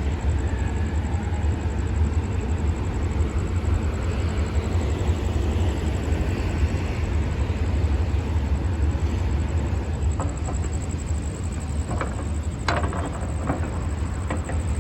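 Hitachi diesel-electric locomotive running with a steady low engine hum, with a few short sharp clicks about ten to thirteen seconds in.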